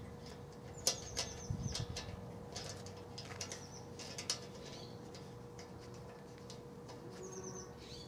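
Scattered metallic clicks and taps as a bracket is tightened onto a steel bed frame, most of them in the first half. Small birds chirp in short high runs of notes in the background.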